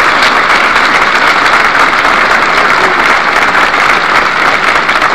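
A large crowd applauding steadily, dense clapping with no break.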